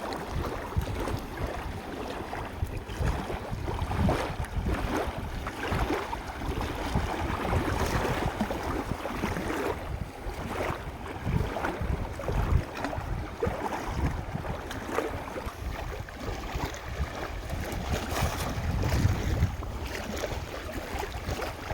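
Wind buffeting the microphone in uneven gusts, over the wash of river water at the bank.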